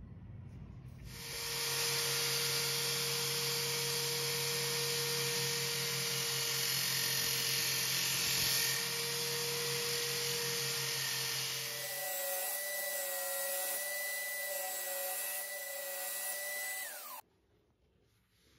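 Electric drill spinning an abrasive disc while a steel file blade is ground against it: a loud, steady grinding noise over the motor's whine. The sound changes about two-thirds of the way through, then cuts off suddenly near the end.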